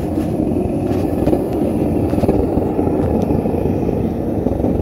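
Propane burner firing into a small steel-pot melting furnace, a steady low roar.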